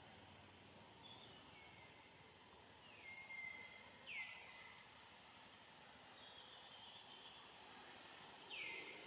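Faint background of bird calls: about five short whistles, each sliding down in pitch, the clearest about four seconds in and near the end, over a low hiss of ambient noise.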